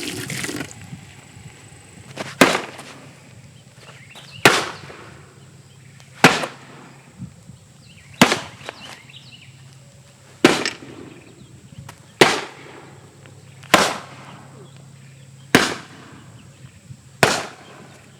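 A Sanitaire vacuum cleaner being smashed: nine sharp blows, one about every two seconds, each a hard crack with a short ring after it, and one lighter knock between them, over a steady low hum.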